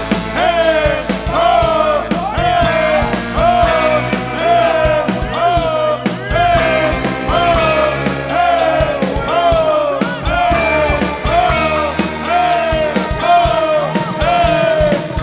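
Live funk band playing an instrumental stretch: a riff of short notes that bend down in pitch, repeated about one and a half times a second, over a steady drumbeat and bass.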